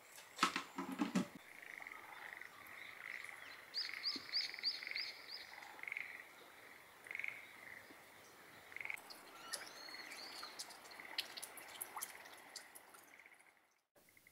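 Frogs calling in a steady, pulsing chorus, with birds chirping over it: a quick run of five rising chirps about four seconds in and more calls later. A few sharp knocks in the first second or so are the loudest sounds.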